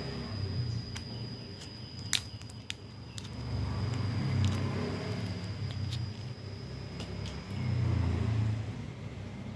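A low rumble that swells and fades twice. A few sharp clicks come about two seconds in as a cylindrical battery cell is handled, and a faint steady high-pitched whine stops near the end.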